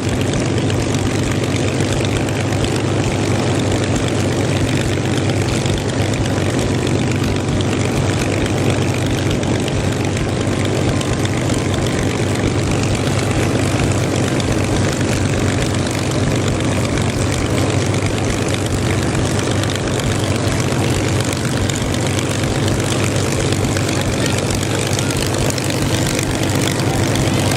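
Aircraft engines droning steadily and loudly.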